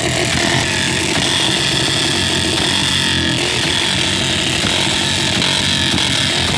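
Royal Enfield Bullet's single-cylinder engine running loud and steady.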